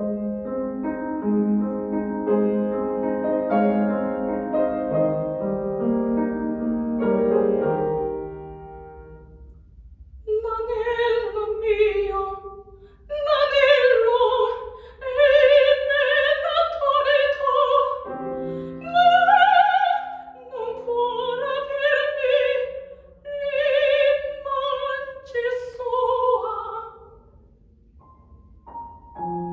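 A grand piano plays an introduction of sustained chords, fading after about eight seconds. A soprano enters about ten seconds in, singing an opera aria with strong vibrato over the piano accompaniment, and both fall quiet shortly before the end.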